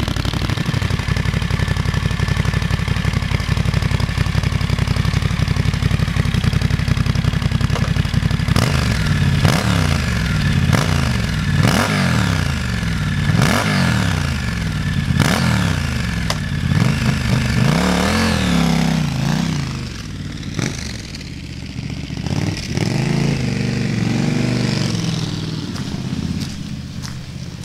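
Triumph Scrambler 1200's parallel-twin engine running through a TEC Flank 2-into-1 exhaust and short silencer: idling steadily, then blipped on the throttle in a string of quick revs, each rising and falling, from about eight seconds in. It drops back lower near the end.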